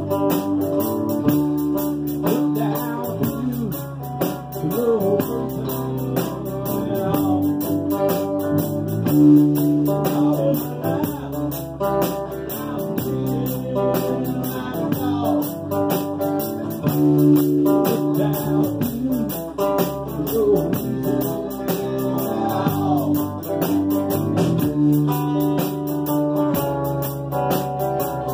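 Live band playing: acoustic guitars strummed and picked over a bass guitar, with some sliding notes.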